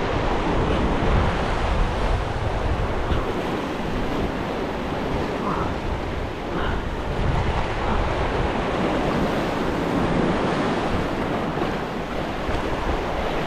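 Surf breaking and washing over a rocky shoreline: a steady rushing noise, with wind on the microphone.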